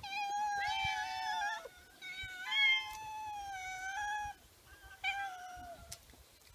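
Stray cats meowing: two long, drawn-out meows, then a short one about five seconds in.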